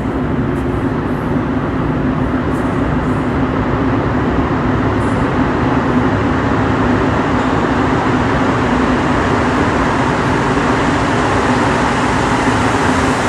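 Subway train arriving at the platform: a loud, steady rumble with a constant low drone, growing slightly louder.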